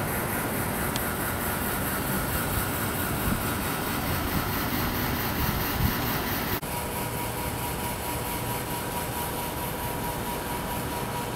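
Steady outdoor background noise with no clear single source, broken briefly about six and a half seconds in, after which a faint steady high tone runs alongside it.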